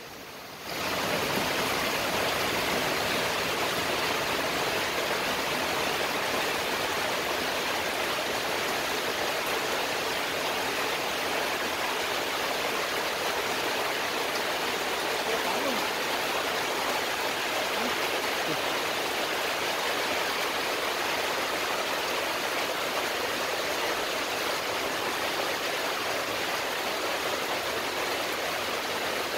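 Heavy rain pouring down, a dense, steady hiss that comes in sharply about a second in and holds without change.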